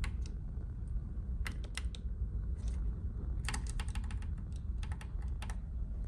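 Steady low drone of a ferry's engines under way, with light sharp clicks on top: a few about a second and a half in, then a quick run of about a dozen between three and a half and five and a half seconds in.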